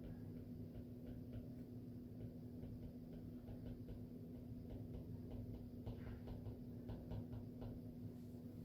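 Quiet study-room ambience: a steady low hum with a run of faint, irregular light clicks, most of them in the second half.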